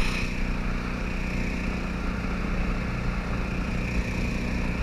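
Small boat's outboard motor running at a steady speed, pushing the jon boat along, with water rushing past the hull.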